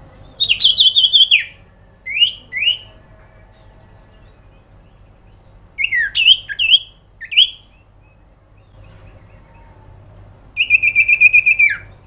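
Common iora (cipoh) calling in loud separate phrases: a rapid trill of about a dozen notes near the start, two quick rising whistles, a cluster of sharp up-and-down notes in the middle, and a lower rapid trill near the end that drops away at its close.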